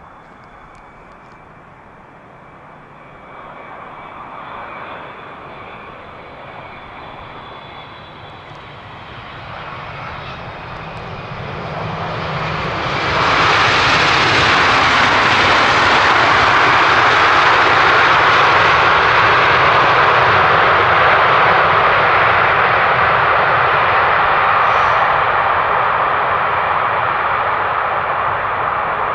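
Wide-body jet airliner's engines on final approach to landing. The sound starts with a faint whine and slowly grows louder as the jet nears, then becomes loud about halfway through and stays loud and steady.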